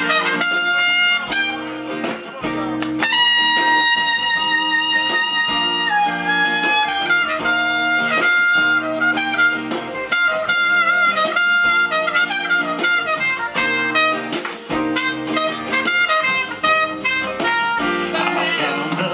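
Live band playing soul-jazz: a trumpet solo over guitar and drums, with a long held note about three seconds in that then steps down into falling phrases.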